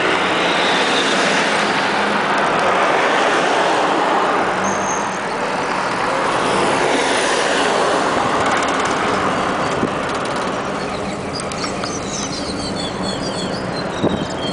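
Road traffic noise: a steady rush of passing vehicles' tyres and engines, easing a little after about five seconds. A few short high chirps come near the end.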